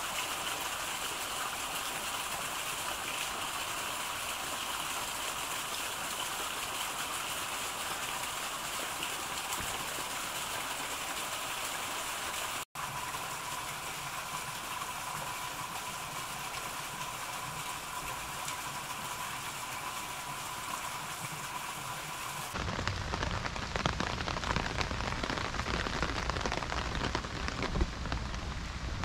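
Steady rain falling. About three-quarters of the way through, the sound shifts to closer, heavier rain with individual drops spattering.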